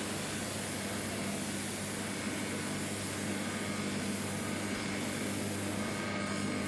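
Coffee roaster's cooling tray running with a steady hum and even rushing noise, as cooled roasted beans pour out through the discharge chute into a plastic bag.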